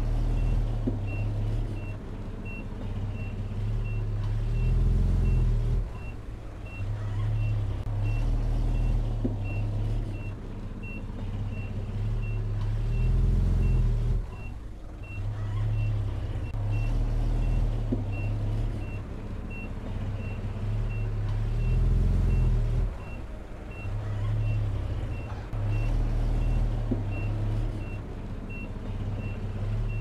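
Diesel engine of a Komatsu bulldozer running under load, growing louder and easing off every eight or nine seconds as it pushes soil. A back-up alarm beeps steadily throughout, a little more than once a second.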